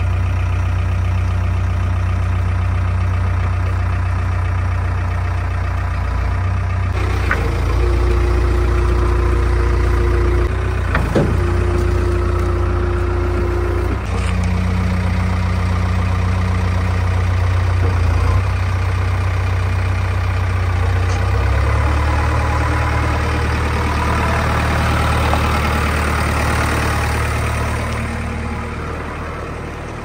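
JCB 3DX backhoe loader's diesel engine running steadily as the machine works its bucket, with a held hydraulic whine that comes and goes about a third of the way in and again just after the middle, and a couple of sharp knocks between.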